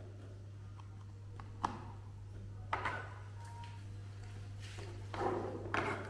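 Light handling noise: a sharp click about a second and a half in, then brief rustles and knocks, over a steady low hum.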